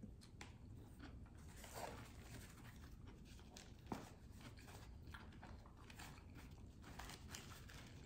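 Faint chewing and mouth noises of a person eating a burger, soft scattered clicks over quiet room tone, with one sharper click about four seconds in.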